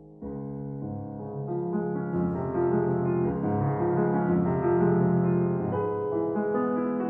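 Background piano music: a gentle melody over held chords, starting just after the beginning and swelling in level.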